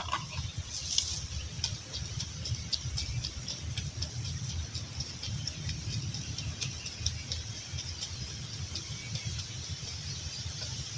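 Faint, irregular scratching and ticking of a thin stick stirring wet soil, over a steady low rumble and a steady high insect buzz.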